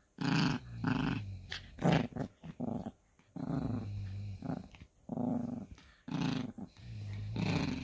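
Yorkshire terrier growling in repeated bursts of about half a second to a second each: playful, possessive growling over a toy.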